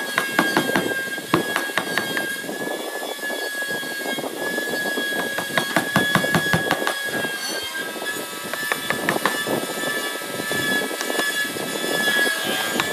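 Wood cracking and splitting in a rapid series of sharp clicks as a flat spade-shaped blade is driven down into a block of timber, prying chips loose, over a steady high tone.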